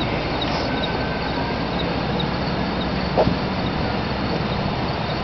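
Steady outdoor background rush with one short knock about three seconds in.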